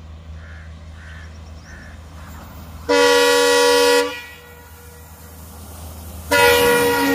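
Indian Railways WDP4D diesel locomotive sounding its horn twice as it approaches, several notes at once: one blast of about a second, then a second blast near the end that carries on. A low steady rumble lies underneath.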